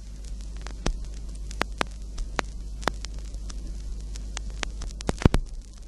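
Steady low electrical hum under faint hiss, with scattered sharp crackles and pops, about ten in all, the loudest a quick cluster near the end.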